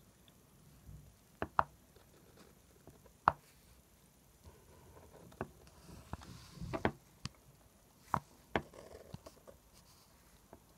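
Fine-tip felt pen drawing on paper: irregular sharp ticks as the tip taps down for short strokes, with faint scratching between them.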